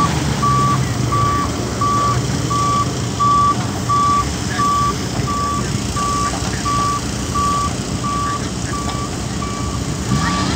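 Excavator's travel alarm beeping steadily, a little under two beeps a second, over its diesel engine running under load as it drags a stuck Jeep out of the mud. The beeping stops near the end.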